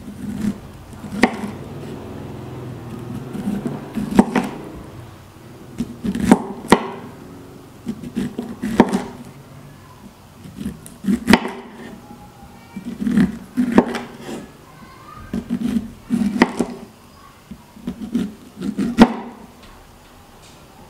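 Kitchen knife cutting kernels off an upright ear of sweet corn: each downward stroke is a short crunchy scrape through the kernels that ends in a knock of the blade on a wooden cutting board, roughly every two to three seconds.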